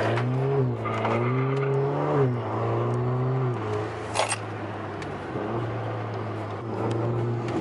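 Alfa Romeo Giulia's turbocharged four-cylinder engine, with its muffler and resonator deleted, heard from inside the cabin while accelerating. The engine note climbs twice, dropping at each upshift, then settles into a steady lower drone, with one short sharp burst of noise about four seconds in.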